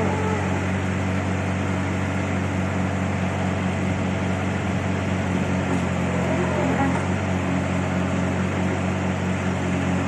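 XCMG XT740 skid steer loader's diesel engine running steadily at idle while the loader arms lower the bucket to the ground.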